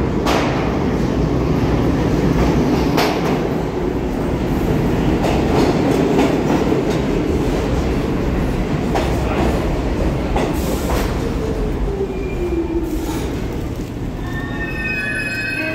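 New York City subway train running on the rails: a steady heavy rumble with scattered clacks of wheels over rail joints. Past the middle a whine falls in pitch, as a train's motors do when slowing, and near the end a high squeal rings out.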